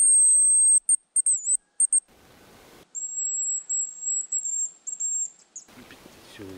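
Hazel grouse decoy whistle (манок) blown to imitate a male hazel grouse's song: a long, very high, thin whistle, then short broken notes and a quick trill. After a brief pause a second run of whistled notes follows, slightly lower, several drawn-out notes ending in short ones.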